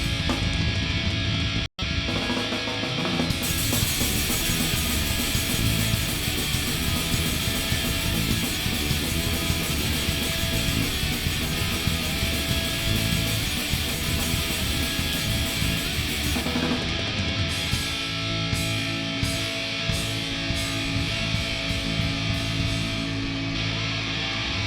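Live rock band playing loud, with electric guitars and a drum kit. The sound drops out for an instant about two seconds in, and from about seventeen seconds in long held notes ring through as the song winds toward its end.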